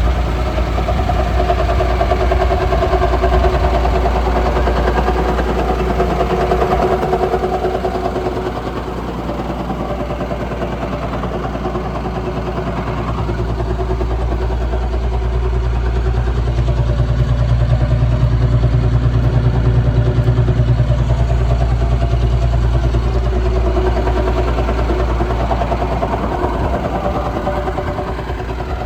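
Liebherr 932 excavator's diesel engine running steadily, its note shifting a few times as the load changes, with a deeper, stronger hum for about ten seconds in the middle.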